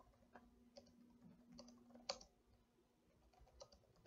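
Faint computer keyboard typing: soft key clicks at an uneven pace.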